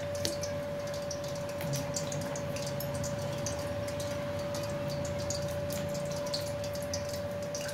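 Soft, irregular wet clicks and squishes of hands pressing and rolling a sticky mixture of soaked sabudana (sago pearls) and mashed potato into balls, over a steady hum.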